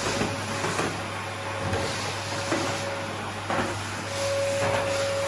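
Vacuum cleaner running with a steady whine, with a few irregular knocks and scrapes over it.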